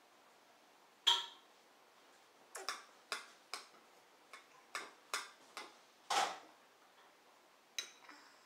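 Metal spoon clinking and scraping against a china bowl as a toddler stirs and scoops food: about a dozen sharp, lightly ringing clinks at an uneven pace, the loudest about a second in.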